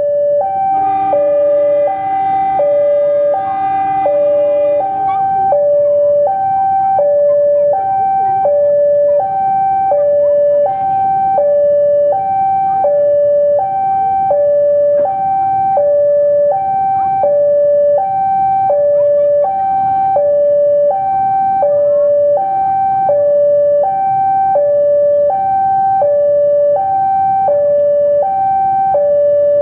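Two-tone railway level-crossing warning alarm, alternating a high and a low tone about every two-thirds of a second. For the first few seconds a CC 201 diesel locomotive's multi-tone air horn sounds one long blast over it, the departure signal.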